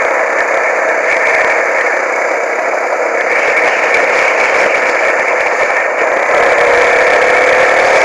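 Off-road motorcycle engine running while riding along at steady speed, mixed with loud wind rush on the camera microphone; it picks up slightly about six seconds in.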